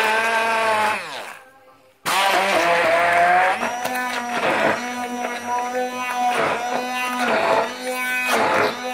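Stick blender running in a bowl, puréeing wild garlic, pine nuts and parmesan into pesto: a steady motor whine that winds down and stops about a second in, starts up again about two seconds in, then runs on with repeated dips and knocks as the blade churns through the leaves and nuts.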